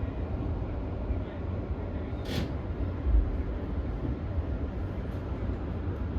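E231 series electric commuter train running, heard from on board as a steady low rumble. A short hiss comes about two seconds in, and a low thump just after three seconds.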